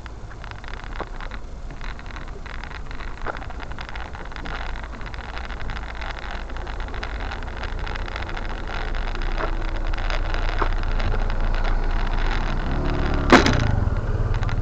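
Low wind and road rumble on a moving microphone, growing louder, with a faint low hum joining near the end and one sharp click about thirteen seconds in.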